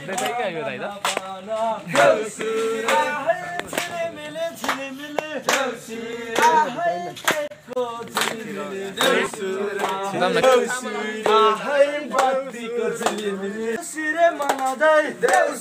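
A group of young men singing a Deusi song together in chorus, with steady hand claps about twice a second keeping the beat.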